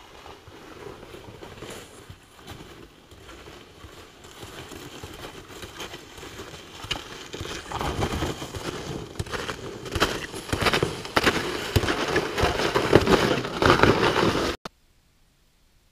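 Footsteps crunching in snow, growing louder as the walker comes up to and passes close by, then cutting off suddenly a little over a second before the end.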